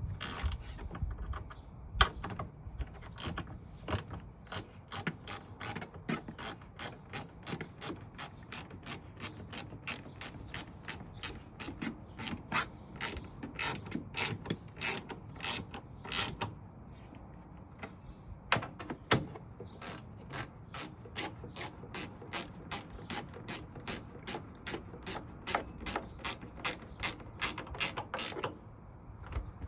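Ratchet spanner clicking in steady strokes, about two clicks a second, as bolts are tightened, with a short pause midway before the clicking resumes.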